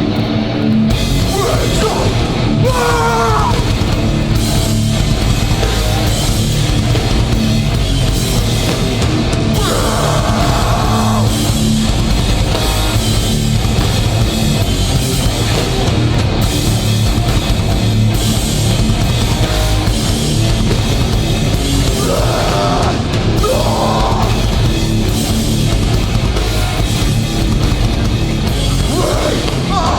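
Hardcore band playing live and loud: distorted guitars, bass and a drum kit driving steadily, with short bursts of shouted vocals a few times.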